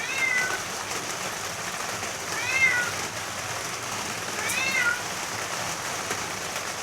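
A cat meowing three times, short high-pitched calls about two seconds apart that each rise and fall, over steady rain.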